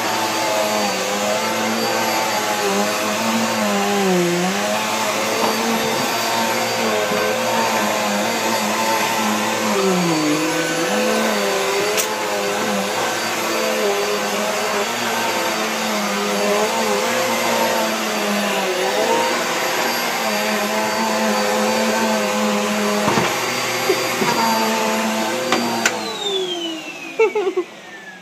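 Vacuum cleaner running steadily, its motor pitch dipping now and then. About two seconds before the end it is switched off and its whine falls away as the motor spins down, with a few knocks.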